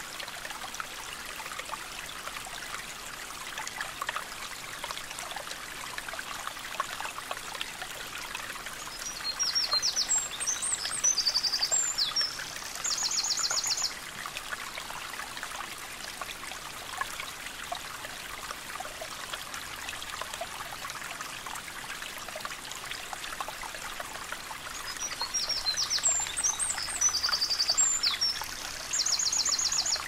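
Babbling stream running steadily, with a songbird singing a high phrase twice, about nine seconds in and again near the end. Each phrase ends in a fast trill.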